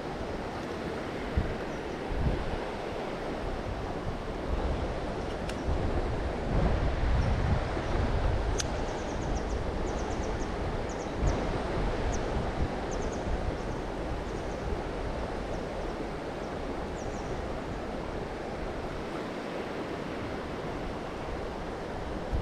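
Steady rush of river water, with gusts of wind buffeting the microphone.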